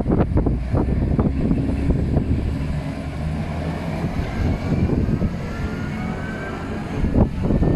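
Freight train hauled by a JR Freight DD51 diesel locomotive running past: a steady low rumble with faint rising tones in the middle and quick clattering knocks near the end.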